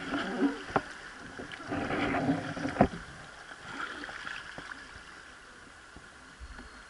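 A wooden oar rowing a river boat, its blade splashing into fast-moving river water beside the hull, with a few sharp knocks. It is busiest in the first three seconds, the loudest knock coming near three seconds in, then settles to quieter water sounds.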